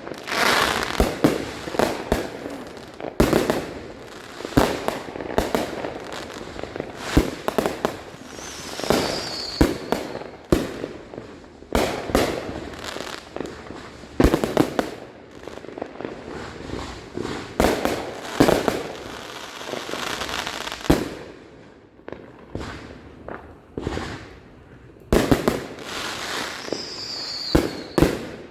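Neighbourhood fireworks going off: a dense, irregular run of sharp bangs and booms with crackling between them, easing off briefly past the middle. A high whistle falling in pitch sounds twice, once about a third of the way in and again near the end.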